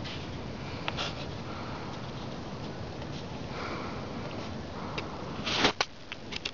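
A person sniffing close to the microphone, with a few sharp clicks from the handheld camera being moved; the loudest sniff comes near the end.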